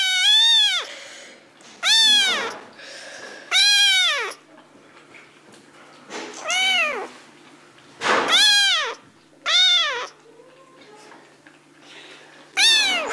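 Young kitten meowing over and over: about seven high, short meows, each rising then falling in pitch, one every one and a half to two seconds.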